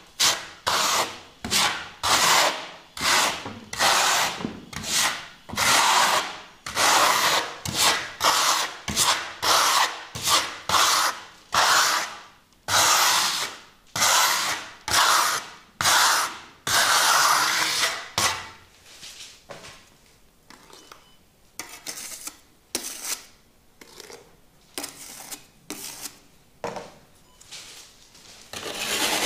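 Steel hand trowel scraping over wet architectural concrete plaster, spreading and smoothing it in a thin coat in rhythmic strokes about one or two a second. The strokes are loud for about the first eighteen seconds, then turn fainter and sparser.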